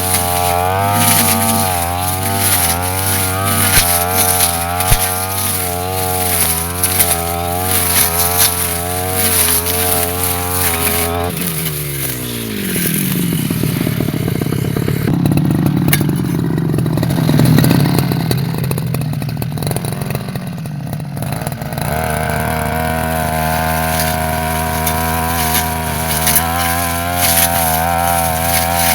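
Two-stroke brush cutter running at high revs, its pitch wavering as it cuts. Around a third of the way in the throttle is let off and the engine winds down to a low idle. About ten seconds later it revs back up to steady full speed.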